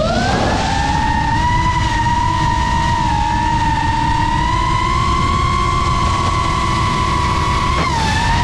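FPV quadcopter's brushless motors whining under throttle: the pitch rises sharply at the start, holds high and climbs slowly, then dips briefly near the end. A low rumbling noise runs underneath.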